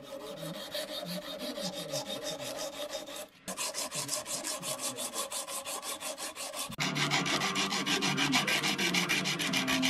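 A strip of abrasive cloth drawn back and forth shoeshine-style over the bow of a hand-forged iron trigger guard to round it, a fast, rhythmic rubbing of several strokes a second. It breaks off briefly twice and is louder in the last few seconds.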